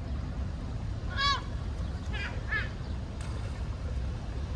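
Gulls calling: one loud arched call about a second in, then two shorter calls about a second later, over a steady low background noise.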